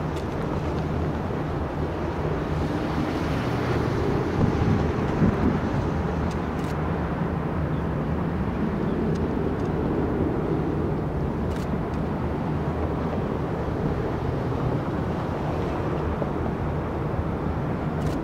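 Boeing 757-200 jet engines at takeoff thrust, heard from a distance as the airliner rolls down the runway: a steady low rumble with a hum underneath.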